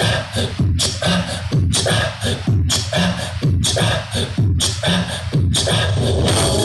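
Loud remix dance music played through a mini sound system, with heavy falling bass hits and a short break about once a second, settling into a steady unbroken beat near the end.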